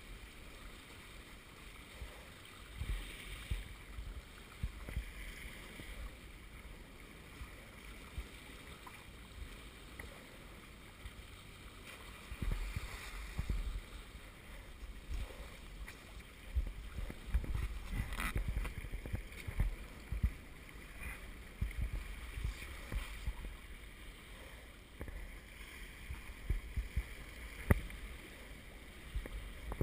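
Water rushing and splashing past the hulls of a Hobie Wave catamaran under sail, with uneven low buffeting and a few sharp knocks or slaps, the loudest near the end.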